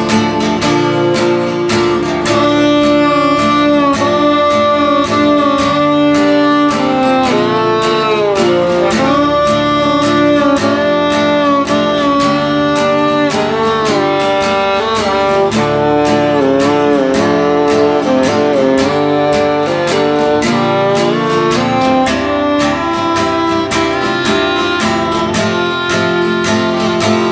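Instrumental break of a country-style song: strummed guitar keeps a steady rhythm while a violin plays a melody with sliding, bending notes.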